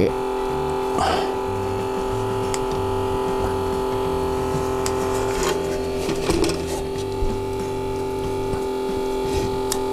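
Background music with a steady held tone and a stepping bass line. A few brief light knocks and rubs from a phone and machine being handled.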